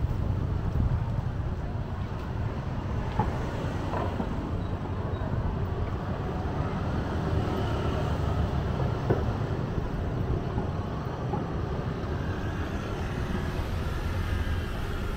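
Street traffic: motorbikes and motorbike-drawn tuk-tuks running and passing, a steady low rumble.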